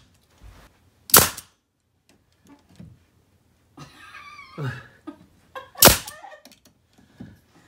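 Pneumatic finish nailer firing twice, about five seconds apart, each a single short, sharp shot as it drives a finishing nail through primed MDF trim.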